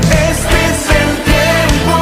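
A live Christian pop-rock worship band playing: singing over electric guitar and a steady drum beat.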